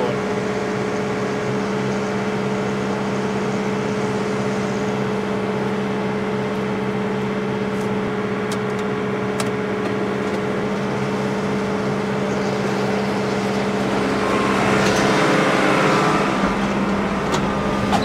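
Tractor engine running steadily under load, heard from inside the cab, as it powers a grain bag extractor unloading barley into a chaser bin. About fourteen seconds in the machine noise grows louder and rougher for a couple of seconds.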